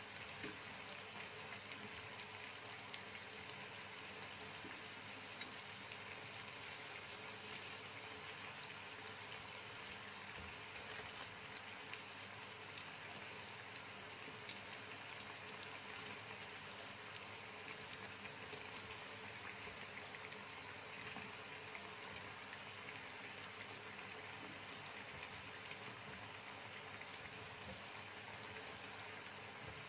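Battered chicken pieces frying in hot oil in a pan: a steady sizzle with scattered sharp crackles.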